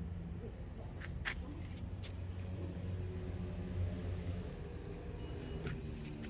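Steady low rumble of a running motor vehicle, with a few light clicks over it.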